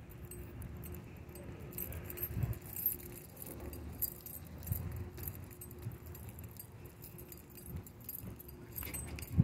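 Walking noise: uneven footsteps and rubbing against the handheld phone, with faint light metallic jingling throughout. A sharp knock comes near the end.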